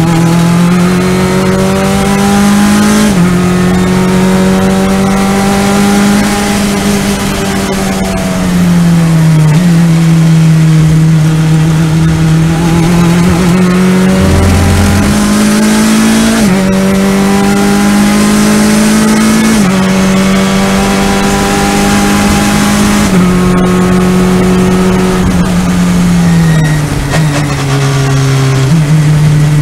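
Race car engine heard from inside the cockpit under hard driving, its note climbing steadily under throttle and falling or stepping abruptly several times as the driver lifts and changes gear.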